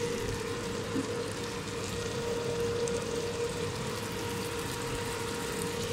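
Soy and oyster sauces sizzling with browned garlic and ginger in a hot stainless steel pot: a steady, even hiss. A steady hum runs underneath.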